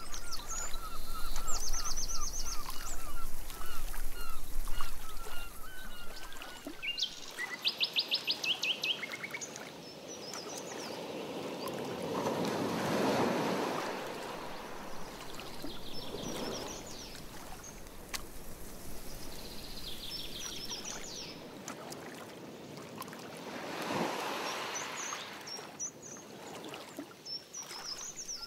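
Canoe paddle strokes swishing through lake water, a few slow strokes in the second half. Birds chirp and give quick trills, mostly in the first nine seconds.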